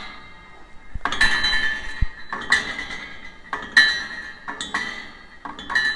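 Metal clinking and ringing: about five sharp strikes at uneven intervals, each leaving a bright bell-like ring.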